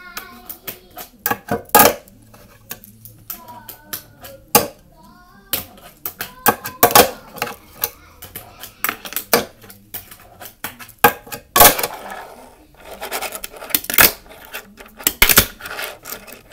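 Fingerboard session on a flat quarter-pipe ramp: sharp clacks of the small board's tail popping, landing and hitting the ramp at irregular intervals, some in quick clusters, with brief stretches of the wheels rolling between.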